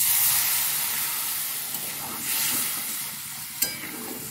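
Water poured into a pan of hot, oil-separated curry masala bursts into a loud hissing sizzle that slowly fades. A single sharp click comes near the end.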